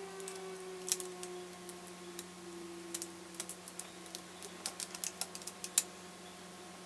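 Small irregular clicks and ticks of fingers working at a laptop's screen assembly, peeling up the tape that holds the webcam and video cable. The clicks come thicker in the second half, over a faint steady hum.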